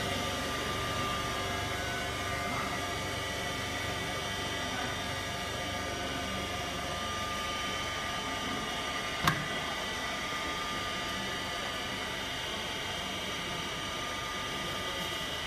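Vacuum pump and Roots pump of a vacuum oil purifier running steadily, a hum with several steady tones, pulling vacuum to draw oil into the vacuum separator. A single sharp click about nine seconds in.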